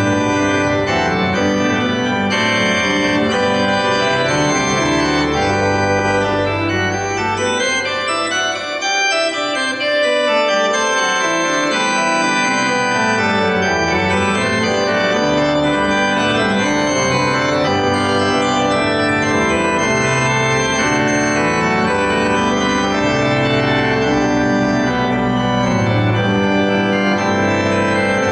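Church organ played solo in full, sustained chords, with the low bass notes dropping away for a moment about eight seconds in before coming back.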